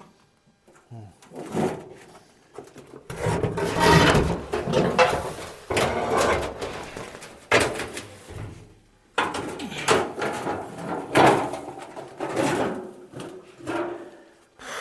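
Heavy metal parts scraping, sliding and clunking in irregular bouts during hand teardown of a 1936 John Deere DI tractor, typical of a cover being worked loose and lifted off.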